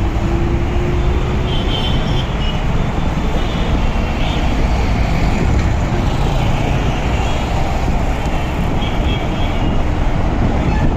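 Steady rumbling travel noise of a moving vehicle, with a thin rising whine that fades out in the first two seconds.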